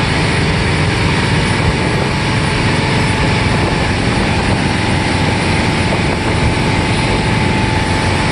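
A machine engine running steadily and loudly, with a low rumble and a constant whine above it.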